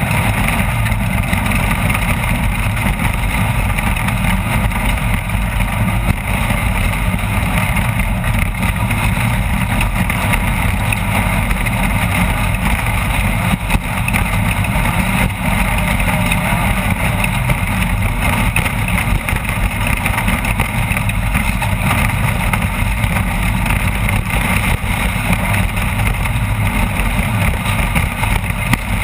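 Off-road race vehicle's engine running steadily and loud, with a constant rough rumble and rattle throughout.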